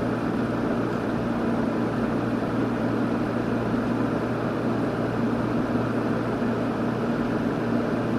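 1988 Sears Kenmore 6000 BTU window air conditioner running steadily: an even rush of air from its fan over a constant low hum from the compressor, with the unit cooling well.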